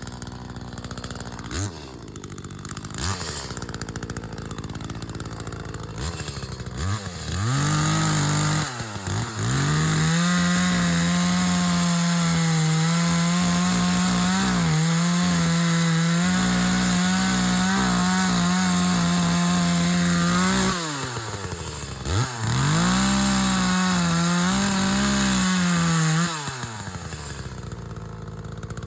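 Two-stroke chainsaw idling with a few short throttle blips, then held at full throttle in two long stretches with slight dips in pitch, as when sawing into a tree trunk. It drops back to idle near the end.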